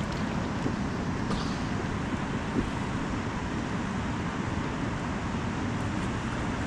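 Steady low rushing of moving river water around a raft, with no distinct splashes or oar strokes.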